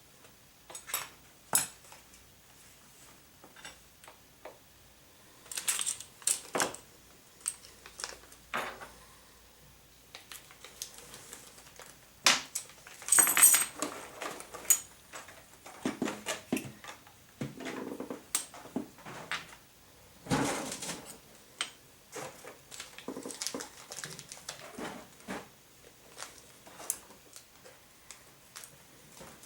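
Small plastic and metal RC car kit parts and hand tools being handled on a workbench: scattered clicks, taps and rattles, with a louder clatter about thirteen seconds in.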